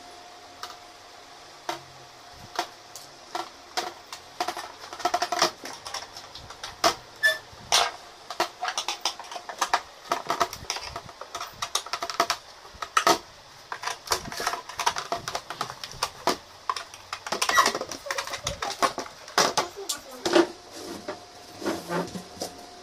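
Irregular clicks, taps and knocks of hand-assembling flat-pack furniture: a hand screwdriver, screws and metal fittings against laminated particleboard panels, with the panels bumped and set in place.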